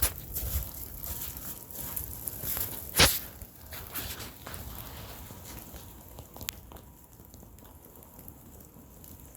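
Footsteps crunching in snow, irregular and soft, with one sharp click about three seconds in; after about six seconds the steps fade to a quiet outdoor hush.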